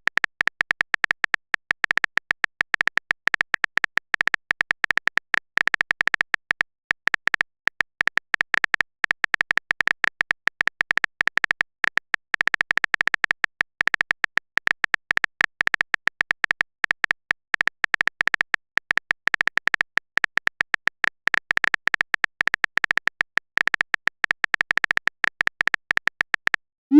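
Rapid, irregular clicking, each click carrying a bright tone: a phone-keyboard typing sound effect. It cuts off just before the end.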